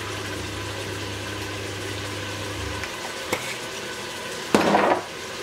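Lamb meat frying in oil in a pot over high heat, a steady sizzle with turmeric and spices just stirred in. A low hum under it stops about halfway through, then a single click and a brief louder noise near the end.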